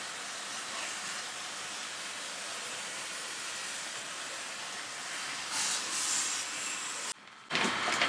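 High-pressure water jet from a pump-fed spray gun hissing steadily against an air conditioner's aluminium heat-exchanger fins inside a plastic cleaning cover, rinsing out the alkaline cleaner. The hiss cuts off suddenly a little after seven seconds.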